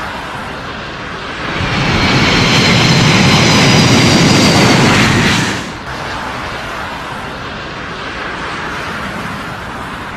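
Turbofan engines of an Antonov An-225 running loud during its landing roll, with a thin high whine over a dense noise. About six seconds in, the sound drops to a quieter, steady jet engine noise.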